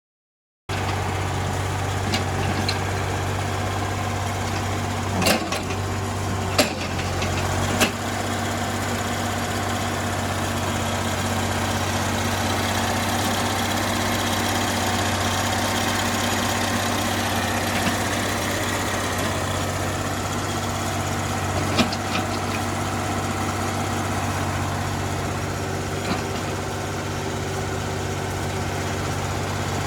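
Mini excavator's diesel engine idling steadily, with a few sharp clanks over it.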